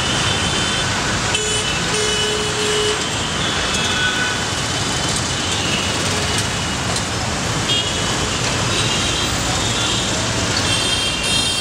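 Dense city road traffic: engines of autorickshaws, trucks and cars passing steadily, with short horn toots sounding several times.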